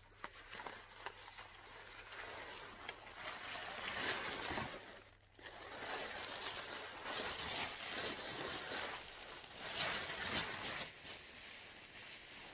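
A thin windbreaker jacket and its plastic wrapping rustling and crinkling as they are handled and unfolded, in uneven swells with a brief lull about five seconds in.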